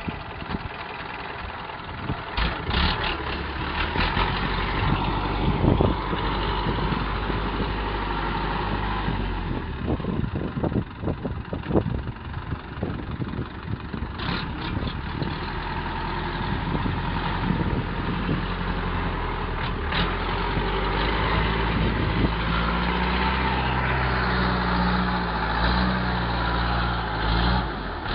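Engine of an old stripped-down tractor running as it is driven over rough dirt, its speed shifting about ten seconds in and rising over the last few seconds. A few sharp knocks sound along the way.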